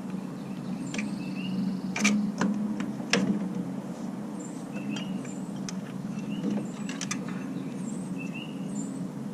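Scattered metal clicks and knocks from hand tools working on the front suspension of a car, over a steady low hum, with a few short high chirps recurring throughout.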